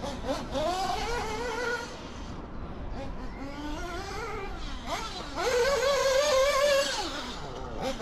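Alpha .21 five-port nitro engine in a radio-controlled car revving up and down as the car laps the track. Its pitch climbs and drops several times, and it is loudest at a sustained high-pitched full-throttle run from about five and a half seconds in, then backs off near the end.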